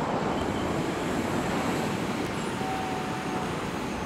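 Steady rush of wind and road noise from a Zero DSR electric motorcycle accelerating hard from a standstill toward 60 mph, with no engine note, only a faint thin motor whine briefly past the middle.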